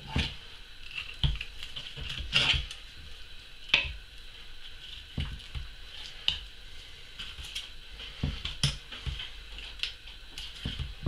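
Knife cutting raw hare leg meat away from the bone on a wooden chopping board, with irregular soft taps and scrapes about once a second.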